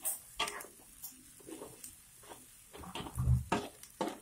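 A spatula scraping and clicking against a wok as squid and onions are stir-fried, in irregular strokes, with a heavier low knock about three seconds in.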